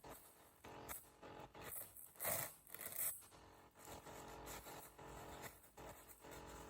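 Paper towels being scrunched and rustled in short, irregular crinkling bursts, the loudest a little after two seconds and around three seconds. A faint steady hum runs underneath, which the uploader takes for a laptop.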